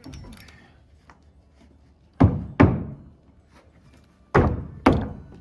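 Four heavy blows in two quick pairs, knocking a tongue-and-groove AdvanTech subfloor panel tight into place, each hit booming briefly through the wooden floor frame.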